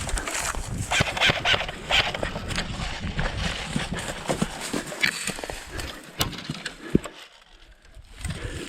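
Footsteps and rustling of an airsoft player pushing through brush and undergrowth, an irregular crackling scuffle, with two sharp clicks near the end.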